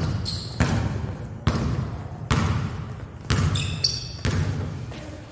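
Basketballs bouncing on a hardwood gym floor, about one sharp bounce a second, each echoing through the large hall.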